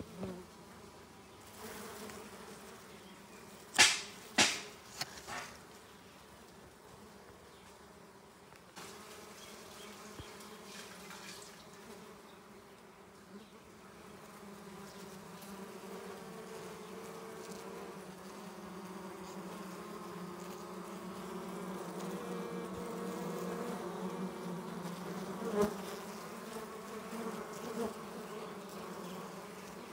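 Steady humming buzz of a wild dwarf honeybee (Apis florea) colony clustered on its open comb, growing louder through the second half. A few sharp knocks come about four to five seconds in.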